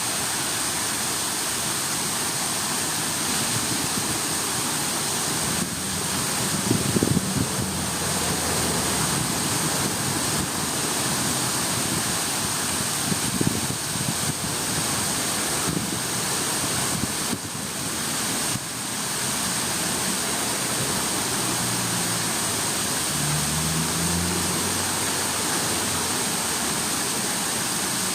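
Steady rush of running water, with a low hum of a passing vehicle briefly about six seconds in and again near the end.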